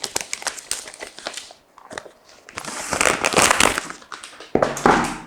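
Packaging being unwrapped and handled: crackly crinkling and tearing of wrapping, with two louder rough rustling stretches in the second half.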